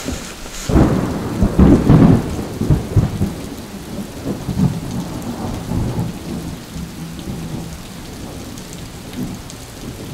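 A thunderstorm: a roll of thunder breaks about a second in, rumbles loudest for a couple of seconds and dies away, over the steady hiss of falling rain.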